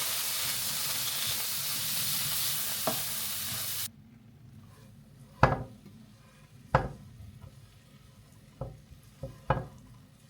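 Food sizzling in a hot pan, cutting off abruptly about four seconds in. Then come five separate sharp knocks, with the last two close together.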